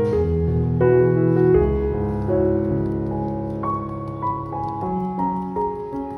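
Background piano music, with held notes overlapping and a new note or chord coming in every second or so.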